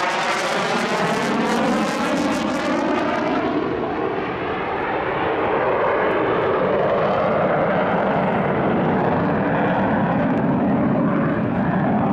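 Military jet aircraft flying past with a loud engine roar, the sound sweeping in pitch early on and its high hiss fading after about three and a half seconds as it draws away, then a steady rumbling roar.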